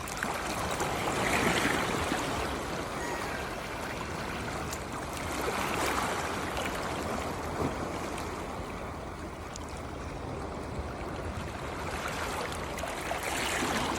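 Sea waves washing in and splashing, a steady rush of water that swells three times, a few seconds apart.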